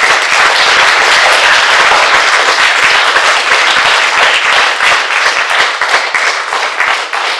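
Audience applauding: loud, dense clapping that starts at once and eases off slightly near the end.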